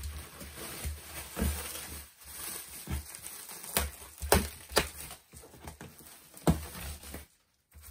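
Black plastic wrapping around a cardboard box being cut with a utility knife and pulled: irregular crinkling of the film with several sharp louder crackles.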